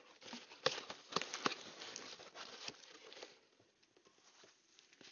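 Rustling of packaging with a few light knocks as a wrapped, padded item is handled, growing quieter about two-thirds of the way through.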